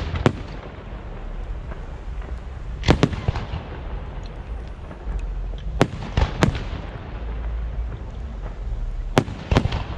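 Fireworks shells bursting in the air as sharp bangs, several times, often in quick pairs or triplets a few seconds apart, over a steady low rumble.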